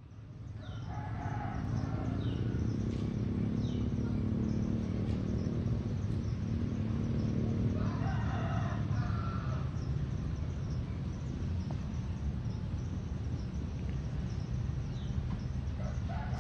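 A rooster crowing about a second in, again around the middle, and once more at the very end, with small birds chirping. A steady low rumble runs underneath.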